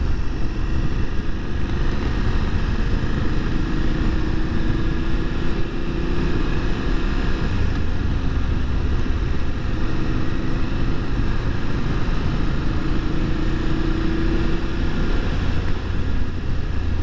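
BMW F750 GS parallel-twin engine running at road speed under a steady rush of wind and road noise. The engine note rises gently twice as the bike gathers speed.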